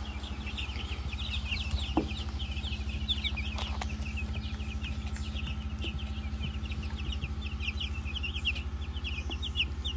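A brooder full of broiler chicks peeping continuously: a dense chorus of short, high cheeps from many birds at once, over a steady low hum.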